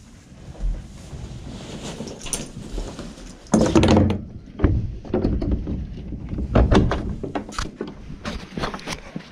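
A horse's blanket rustling as it is pulled off the pony. Then come heavy thumps and footsteps in the wood-shavings bedding of the stable, and near the end knocks and handling noise as the camera is picked up.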